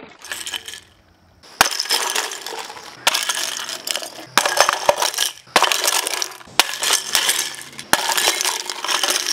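Stacks of empty aluminium soda cans struck by a tennis ball and clattering as they topple, tumble and roll off a small wooden table, about six times in quick succession. Each crash begins with a sharp hit and rattles on for about a second.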